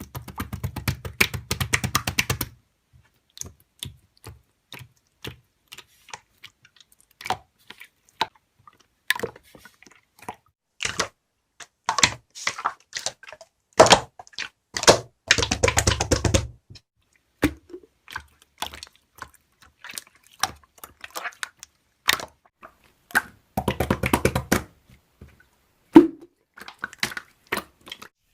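Slime being pressed and stretched by hand, making irregular clicks and pops of trapped air, with a few denser stretches of crackling, the first at the start.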